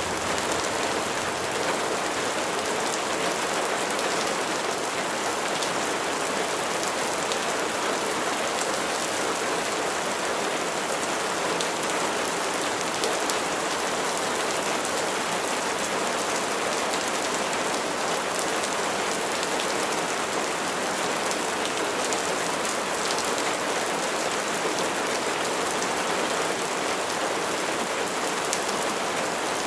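Steady rain falling, with many fine raindrop ticks on a surface in a constant even hiss.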